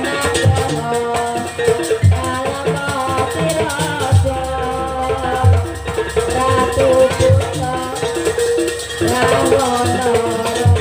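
Live East Javanese jaranan gamelan music: deep drum strokes about once a second under a wavering melody line, with a constant jingling rattle.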